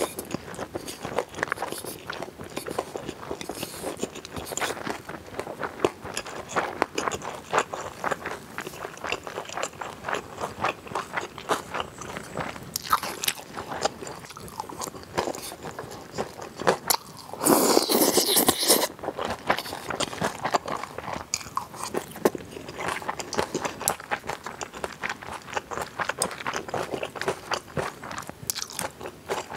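Close-miked chewing and crunching of a mouthful of chilled pigs' feet salad, crisp julienned vegetables with chewy pork and glass noodles, a steady run of small wet crunches. Just past the middle comes a louder, noisier burst lasting over a second.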